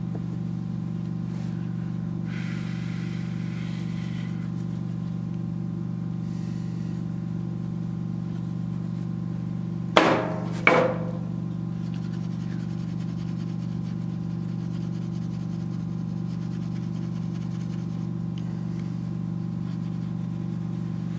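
Steady machine hum, made of a few fixed low tones, with two sharp knocks about ten seconds in, under a second apart.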